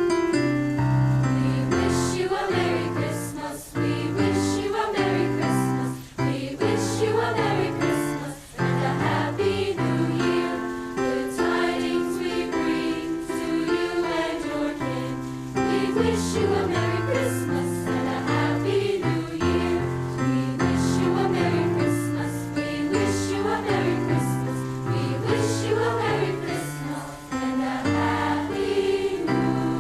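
A choir singing a song over instrumental accompaniment, with bass notes and a steady percussive beat.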